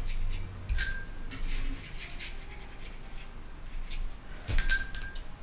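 Metal watercolour palettes and a ceramic paint dish being moved and handled on the table: two short ringing clinks, about a second in and near the end, the second the louder, with light handling noise between.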